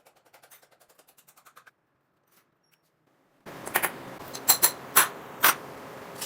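Faint rapid ticking, then after a pause a run of sharp metallic clicks from hands-on work on a Honda CD70 motorcycle engine.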